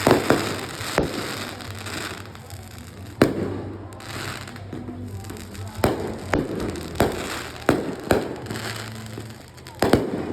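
Aerial fireworks bursting: about ten sharp booms at irregular intervals, each trailing off in a rumble, with several clustered close together in the second half.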